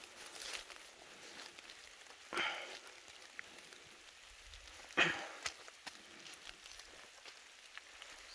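Footsteps and legs brushing through tall wet grass and brush, with two louder swishes about two and a half and five seconds in, over a faint patter of drizzle.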